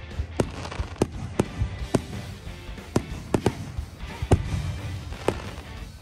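Aerial fireworks bursting overhead: about ten sharp bangs at uneven intervals over a low rumble.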